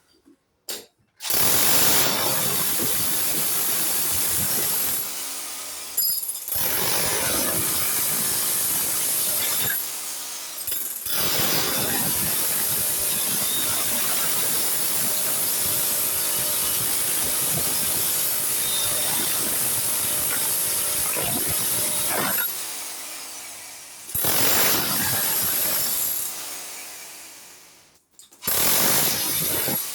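Power tool running in long continuous stretches with a high whine, stopping briefly a few times and fading out near the end.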